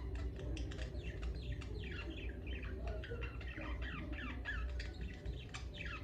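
Pet budgerigars chattering: a continuous run of quick, short chirps that slide downward in pitch, over a steady low hum.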